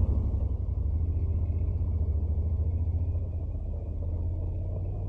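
Steady low rumble of a Honda NC750X motorcycle ridden slowly, its engine and the wind on the onboard microphone; it eases slightly about three seconds in.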